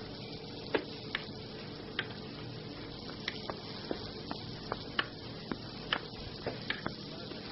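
Restaurant kitchen sounds: scattered sharp clicks and knocks of utensils and knife work, unevenly spaced, about one or two a second, over a steady low hum.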